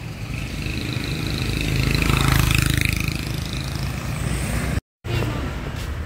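A motor vehicle passing close by on the street. It grows louder to a peak about two seconds in, and its whine drops in pitch as it goes past.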